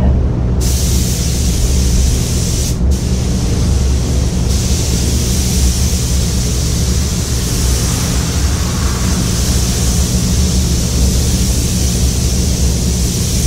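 Compressed-air spray gun hissing steadily as it sprays quartz glass coating onto a car body, over the steady low hum of the spray booth's ventilation. The hiss breaks off briefly near the start and again about three seconds in, as the trigger is let go.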